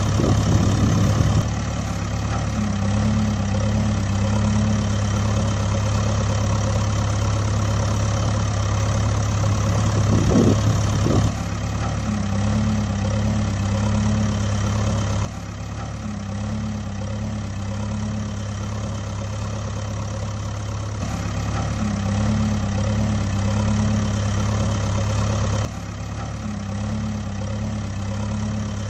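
Engine idling steadily with a low, pulsing hum; the sound drops abruptly in level about halfway through and again near the end.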